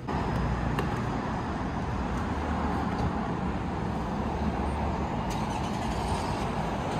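Steady road traffic noise: cars passing on a nearby road, a continuous even rush with a low rumble.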